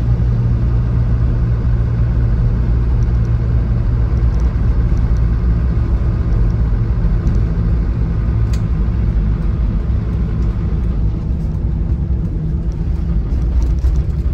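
Land Rover Defender 90 Td5's 2.5-litre five-cylinder turbodiesel and road noise heard from inside the cabin on the move: a steady low drone that gets a little quieter in the last few seconds, with a single click about eight seconds in.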